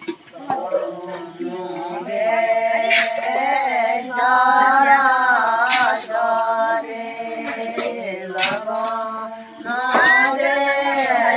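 A group of women singing together without instruments, several voices overlapping in long, wavering held notes with short breaths between phrases.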